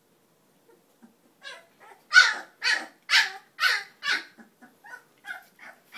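A series of short, high-pitched dog yelps, about two a second, loudest in the middle and trailing off into a few quieter ones near the end.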